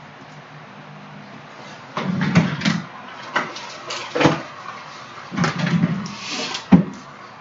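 Trading cards and packs being handled on a table: a series of sharp taps and knocks with short bursts of rustling, the loudest knock near the end.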